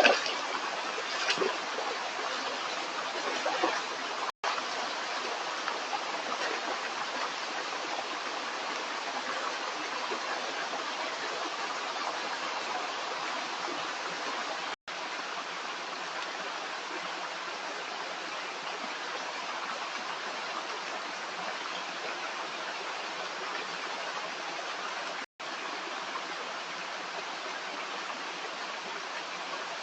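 A stream of running water flowing steadily, with a couple of louder splashes in the first second or so. The sound drops out completely for an instant three times, about 4, 15 and 25 seconds in.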